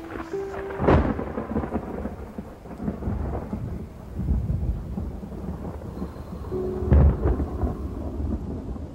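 Two claps of thunder about six seconds apart, each dying away into a low rumble, over steady rain. Soft sustained music notes sound briefly near the start and again just before the second clap.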